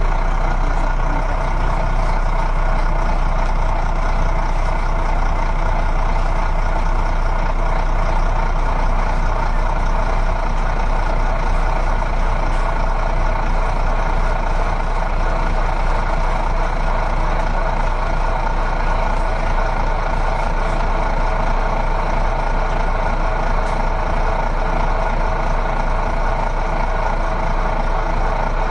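Steady heavy truck engine sound running evenly without change, not matching the moves of the toy trucks on screen.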